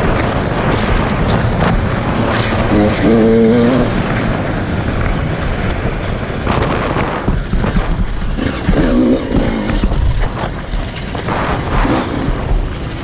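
Dirt bike engine revving up and easing off again and again as it rides a rough trail, over a steady rush of wind and ground noise on a helmet-mounted microphone.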